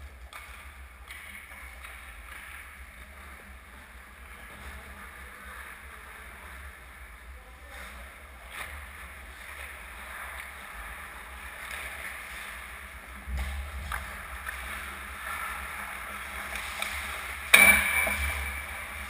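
Ice skates scraping and carving on rink ice over a steady low rumble, growing louder as skaters move in on the net. Near the end a single sharp, loud crack of a hockey puck strike rings briefly.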